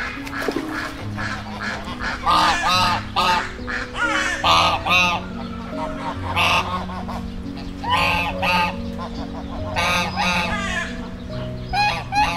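Ducks calling: short, repeated honking calls in clusters of two or three, over background music with steady low notes.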